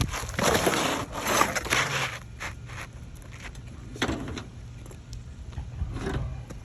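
Asphalt shingle scraping and rustling against the roof shingles as it is handled and slid into place, loud for about two seconds, then a few light knocks and two short scrapes.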